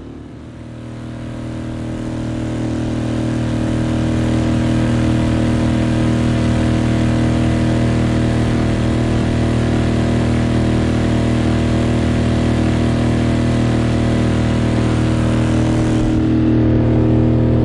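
Suzuki outboard motor running steadily as the small boat travels, the sound swelling over the first few seconds and then holding an even note.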